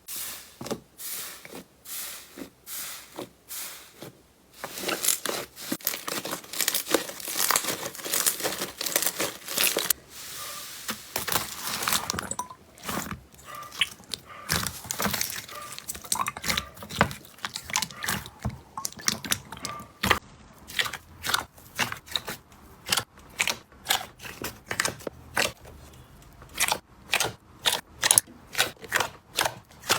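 Slime being squeezed and pressed by hand, crackling and crunching, then giving a run of sharp pops about two a second through the last third.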